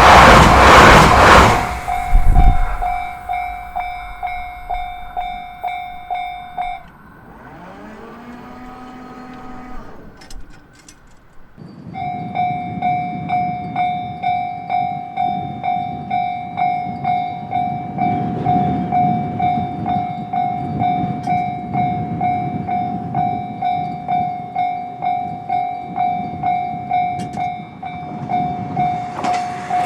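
Japanese level-crossing warning bell ringing in fast, even pulses. It starts right after a train passes at the opening, stops about 7 seconds in, and starts again about 12 seconds in. Under the second ringing an approaching train's rumble grows, and the train arrives loudly at the very end.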